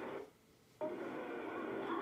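Old home-video soundtrack played through a television speaker: steady background noise with a faint hum, cutting out to near silence for about half a second at an edit between scenes, then resuming.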